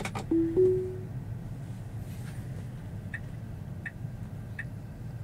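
A Tesla's two-note rising chime sounds about half a second in, the chime it plays when Autopilot/FSD engages. About three seconds in, the turn signal starts ticking at a little under 1.5 ticks a second, over a steady low cabin hum.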